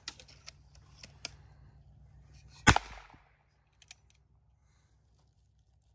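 One shot from a Ruger Wrangler .22 single-action revolver a little under three seconds in: a single sharp crack with a short trailing echo. A few faint clicks come before it.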